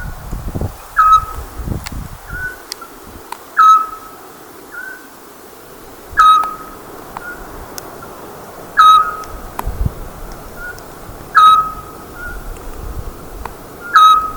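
Eurasian scops owl calling: a single short whistled note, dipping slightly at the start, repeated at a steady pace about every two and a half seconds, six times. Fainter, shorter notes sound between the calls.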